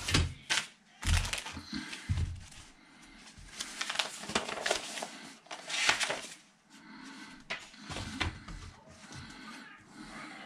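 Rustling of a paper instruction sheet being handled, with light clicks and clatter of plastic model-kit parts sprues being picked up.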